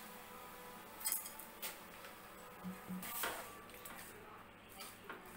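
A steel spoon clinking and scraping against a metal pan while chopped vegetables in tamarind water are stirred, with a few light clinks a second or two apart.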